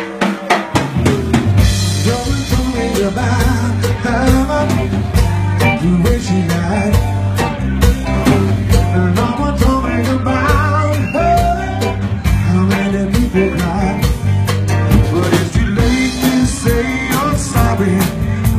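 Live rock band playing an instrumental passage: a drum kit keeping a steady beat, a bass guitar line, a Hammond electronic keyboard and electric guitar, with a wavering melodic lead line over the top.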